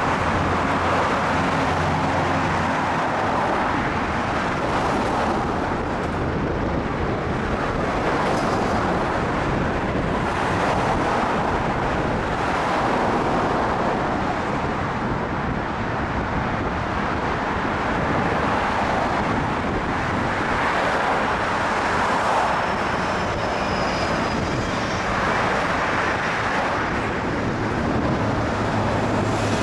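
Road traffic: cars driving past on a busy street, a steady rush of tyres and engines that swells and fades as each vehicle goes by.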